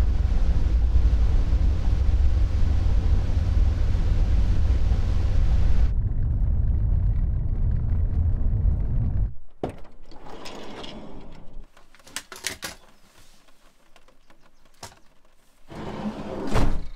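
Road and engine noise inside a Ford van's cab while driving on a wet road, a steady low rumble that fades out about nine seconds in. After that it is much quieter, with scattered clicks and knocks and a louder burst near the end.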